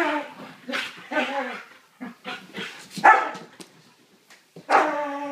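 Two dogs barking in rough play: a string of short, pitched barks, several in quick succession, a lull near four seconds, then a longer drawn-out bark near the end.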